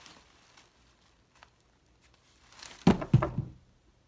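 Rustling of artificial flowers, then two loud dull thumps about a quarter second apart as a small toy falls through them and lands.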